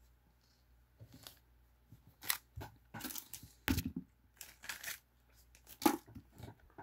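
A small plastic parts bag crinkling and tearing open, and small metal screws and fittings clicking down onto a wooden desk, in an irregular string of sharp rustles and clicks.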